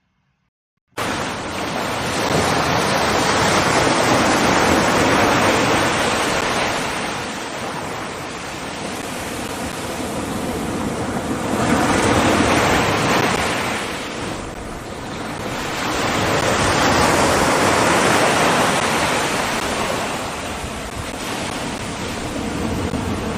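Ocean surf breaking on a beach, starting abruptly about a second in, then swelling and falling back in slow surges several seconds apart.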